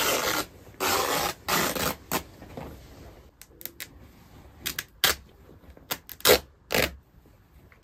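Woven fabric being torn apart by hand along a seam. There are three loud rips of about half a second each in the first two seconds, then a run of shorter, sharper tears about every half second. The tear runs straight along the fabric's grain line.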